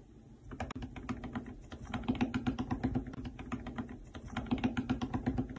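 Rapid, irregular clicking and tapping from a sugar glider, many clicks a second in uneven clusters, starting about half a second in.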